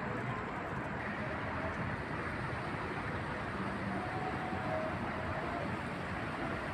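Steady rushing wind, with faint short calls, likely birds, heard through it.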